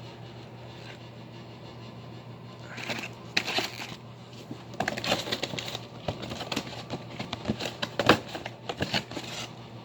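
Hands handling fireworks packaging and mortar shells: scattered rustles, crinkles and clicks, the sharpest click about eight seconds in, over a steady low hum.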